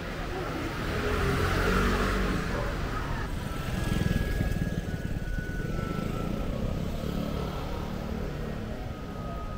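Street traffic going by: a vehicle passes, loudest about two seconds in, with engine rumble swelling again around four seconds.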